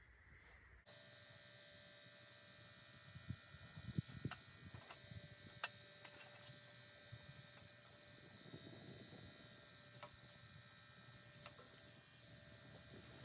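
Sierra stove's small battery-powered blower fan switching on about a second in and then running with a faint, steady electric hum, with a few sharp crackles from the burning wood.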